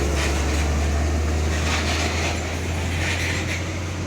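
Heavy truck's diesel engine running with a steady low hum and tyre noise as it passes close by, easing off slightly about two-thirds of the way through.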